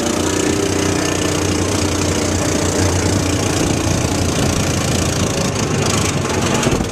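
A motor engine running steadily and loudly.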